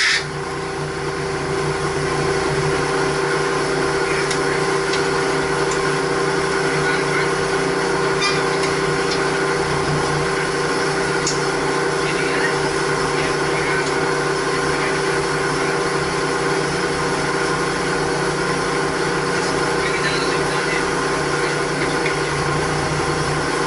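Steady machinery drone with several held tones, from equipment running in a mechanical plant room. A few faint clicks of hand tools sound over it.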